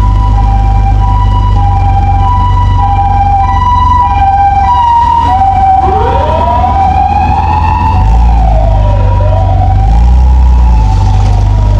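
Emergency vehicle sirens: a hi-lo two-tone siren alternating steadily between two pitches, the pattern used by Japanese ambulances. About six seconds in, a second, wailing siren starts, sweeping up in pitch, then falling and rising again. A steady low engine and road rumble runs underneath.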